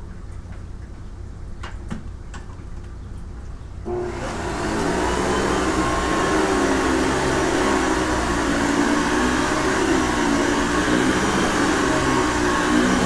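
Hoover Convertible upright vacuum cleaner switched on about four seconds in, its motor spinning up within a second or two and then running steadily with a smooth hum. Before it starts there is only a low rumble and a few faint clicks.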